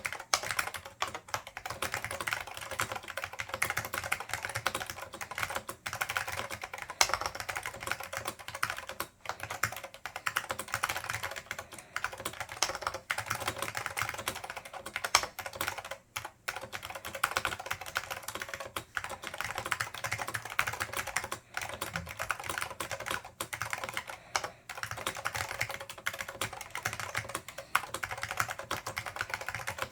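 Fast, continuous typing on a Dell AT101 keyboard with Alps SKCM Black switches, lightly lubed, and Alps doubleshot keycaps: dense clicking keystrokes with a few brief pauses.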